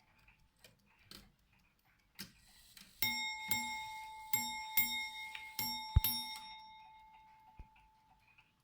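Ship's bell clock striking six bells: faint ticking, a click about two seconds in, then six bell strokes in three pairs, the ringing dying away about two seconds after the last stroke. Six bells marks six half-hour 'glasses', three hours into a four-hour watch.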